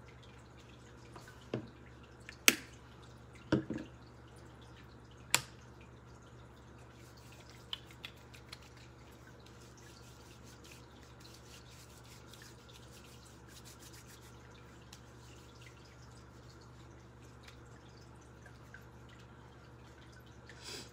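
A few sharp clicks and knocks in the first few seconds, then a stretch of faint crackling rustle: hand sanitizer being pumped out and rubbed into the hands. Quiet throughout, with only a low steady hum after the rubbing stops.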